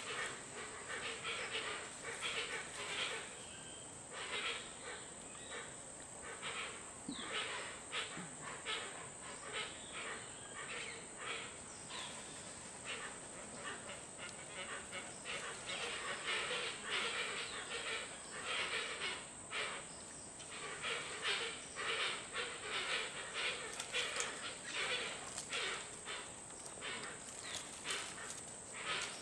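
Tropical forest ambience: a dense, continuous chorus of short, rapid animal calls with a steady high-pitched whine behind it.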